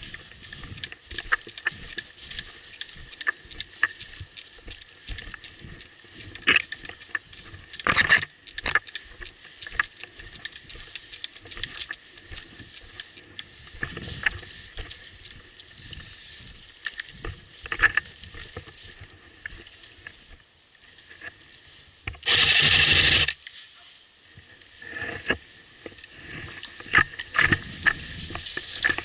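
Footsteps on dry leaf litter with twigs snapping and clothing and gear brushing through undergrowth, as scattered irregular clicks and crackles. About three quarters of the way through, a loud burst of noise lasts about a second.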